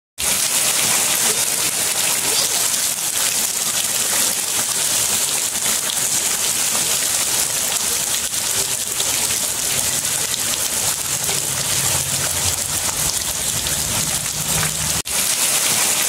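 Heavy rain pouring onto a stone-and-brick ledge and splashing into pooled water on the ground: a steady, dense hiss, broken for an instant near the end.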